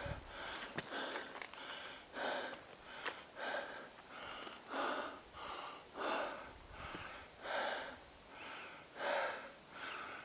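A person breathing hard and rhythmically, heavy in-and-out breaths about three every two seconds, from the exertion of climbing a steep rocky mountain trail.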